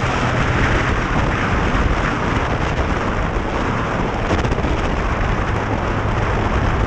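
Steady wind roar buffeting the action camera's microphone while riding a Yamaha MT-09 motorcycle, with the bike's three-cylinder engine humming low underneath.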